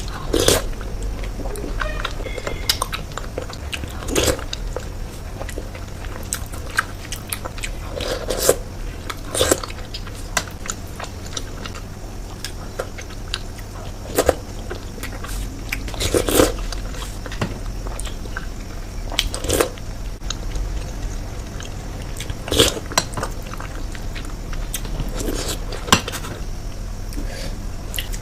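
Close-miked eating of Indian sweets: bites and chewing, with sharp crunchy bites every second or two.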